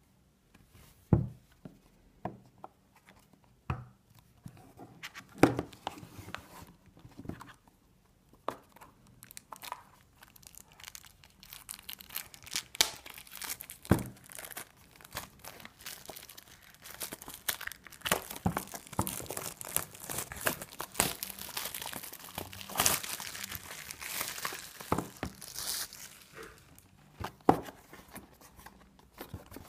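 Product packaging being handled and opened by hand: scattered knocks and taps in the first several seconds, then a long stretch of tearing, rustling and crinkling of the packing with many small clicks, dying down near the end.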